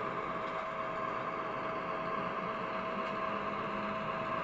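HO scale model train running steadily along the track: a constant whirring hum with a thin steady whine over it.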